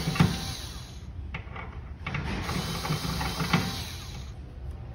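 Small cordless electric screwdriver whirring as it drives a bolt in a wooden board, in two runs: one stopping about a second in, the other from about two seconds to just past four, with a couple of sharp clicks from the bit on the bolt head.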